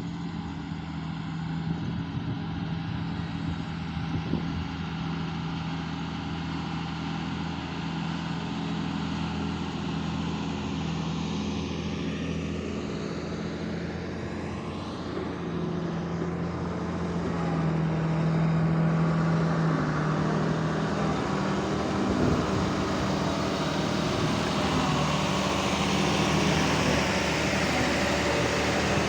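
Heavy diesel engines of a hydraulic excavator and tipper truck running steadily at a mine loading site. The engine note grows louder a little past halfway through and stays up.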